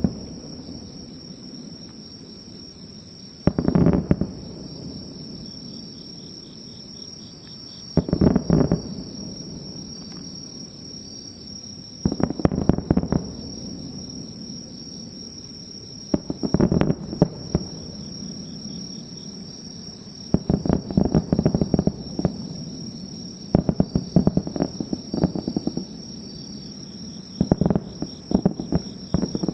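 Fireworks going off in clusters of bangs and crackles, one volley roughly every four seconds. Insects chirp steadily underneath.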